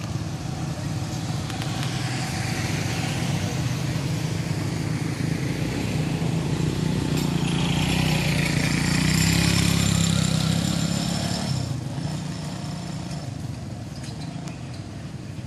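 A motor vehicle passing by: a steady engine hum that swells to its loudest about nine seconds in and fades away over the next few seconds.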